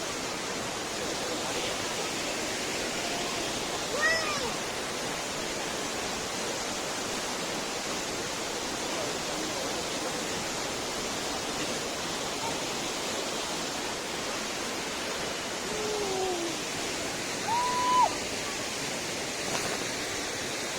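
Waterfall pouring, a steady rushing of water. A few short pitched calls cut through it, once about four seconds in and twice near the end.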